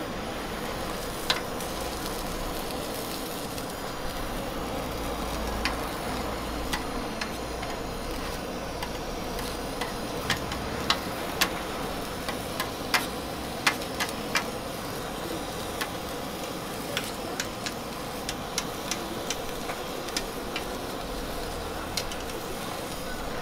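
Handheld gas blowtorch hissing steadily while searing diced ham and meat, with food sizzling on a flat-top griddle. Sharp metal clicks of tongs and spatula on the griddle come now and then, most often around the middle.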